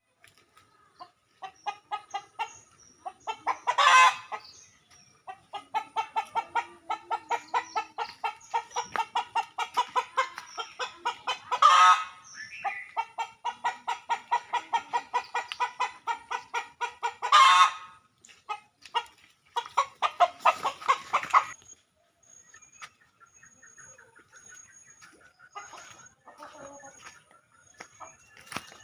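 Domestic chickens clucking in long runs of rapid, evenly repeated short calls, broken by three loud, sharp squawks; after about 22 seconds the calls become fainter and sparser.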